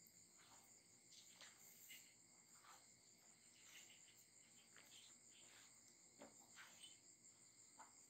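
Near silence, with a faint steady high-pitched insect drone and scattered faint short chirps.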